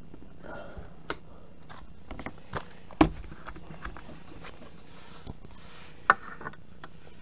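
Cardboard boxes and papers being handled on a tabletop: scattered light taps and rustles, with a sharp knock about three seconds in as a card box is set down and another about six seconds in.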